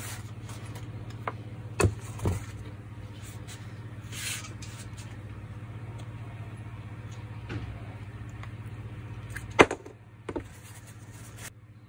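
Small metal gearbox parts clicking and knocking as they are handled on a workbench: a few sharp clicks, the loudest near the end, over a steady low hum.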